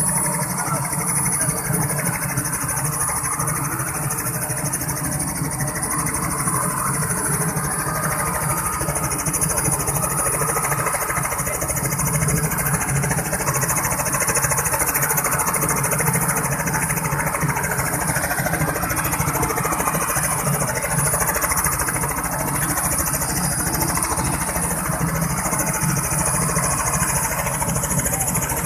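Light two-bladed helicopter running on the ground at idle, its engine and rotor giving a steady, even drone before takeoff.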